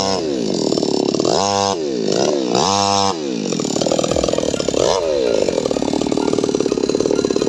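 Two-stroke chainsaw revving hard, its revs dropping and climbing back several times, then held high and steady before stopping abruptly at the very end.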